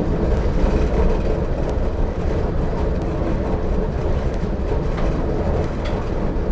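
Passenger train running: a steady low noise heard from inside the carriage.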